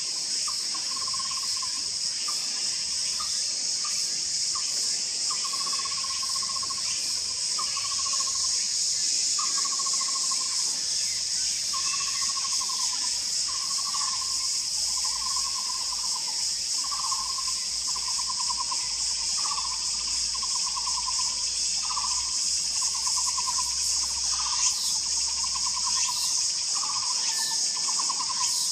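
Taiwan barbet calling: a low, trilled note repeated roughly once a second, the notes growing longer as the series goes on. A steady high buzzing of insects runs under it.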